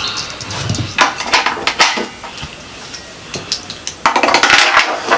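Batteries being pushed into the plastic battery compartment of a digital bathroom scale: a series of sharp clicks and clinks, then a denser scraping clatter near the end.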